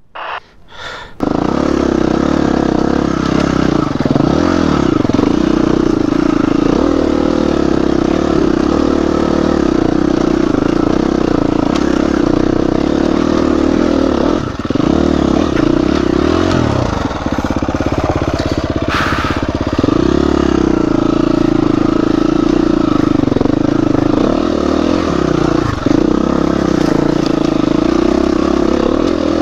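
Dirt bike engine running under load on a trail ride, cutting in about a second in, its revs rising and falling as the rider works the throttle, with brief dips in power a few times.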